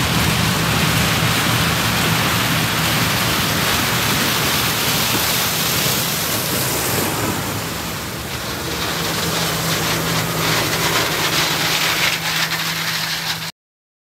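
A John Deere combine harvesting corn: a steady engine hum under a loud, even rush of chopped stalks and chaff thrown from the rear spreader. It cuts off suddenly near the end.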